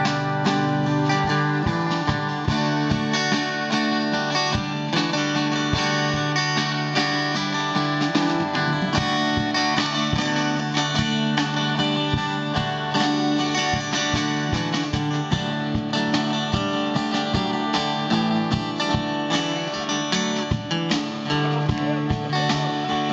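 Acoustic guitar playing an instrumental break in the song, with no singing.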